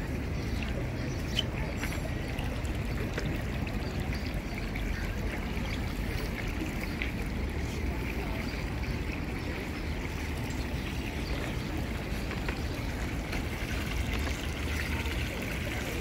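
Small fountain running steadily: water pouring from a stone spout into a shallow basin and spilling over the rim into a pool below.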